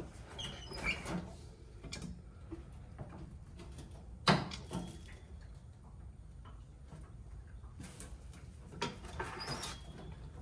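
Scattered clicks, knocks and scrapes of hand tools and metal parts being handled, with one sharp knock about four seconds in and a few brief squeaks.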